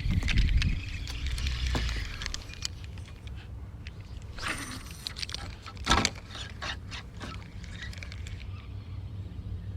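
Small fishing boat's motor running steadily at a low hum, with scattered clicks and knocks, the sharpest about six seconds in.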